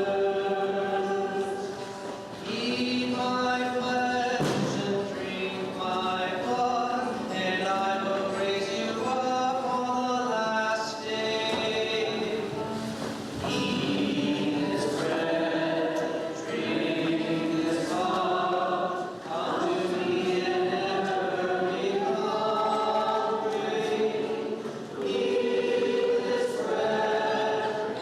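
Group of voices singing a hymn together, holding each note before moving to the next.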